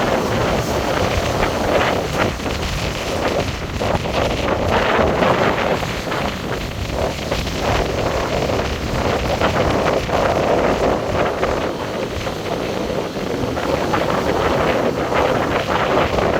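Heavy surf from a hurricane swell, waves breaking and washing ashore in swells, under strong wind buffeting the microphone.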